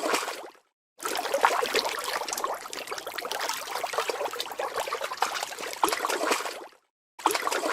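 Water splashing and dribbling, a sound effect of a fish swimming. A short splash fades out early, a long run of splashing starts about a second in, and after a brief break near the end it starts again.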